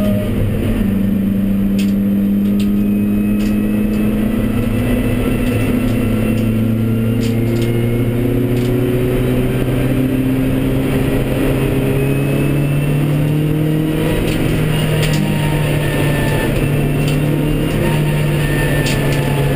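Honda Civic Type R EP3's 2.0-litre four-cylinder engine pulling hard at racing pace, heard from inside the cabin, its pitch climbing slowly and steadily through long gears. Scattered sharp clicks sound over it.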